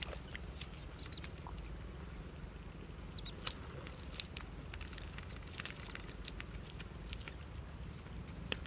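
Bare feet walking on wet, cracked mud: soft irregular clicks and squelches from the steps, over a steady low rumble, with a couple of short high chirps.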